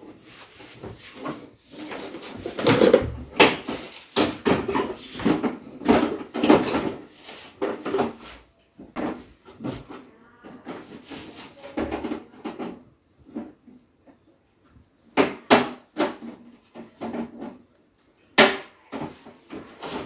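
Plastic casing of an O General split AC indoor unit being handled on the wall: irregular clacks, knocks and rattles as its front panel and louvres are pressed and fitted, with a short lull a little over two-thirds of the way through.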